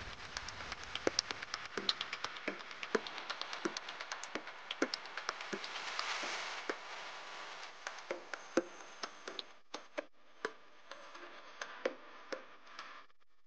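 Irregular sharp clicks and taps, several a second, some with a short hollow ring, over a faint hiss. After about eight seconds the hiss drops away and the clicks become sparser.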